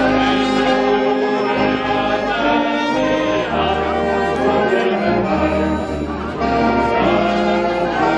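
A small brass band with a tuba playing live, the tuba's bass notes pulsing steadily under the melody.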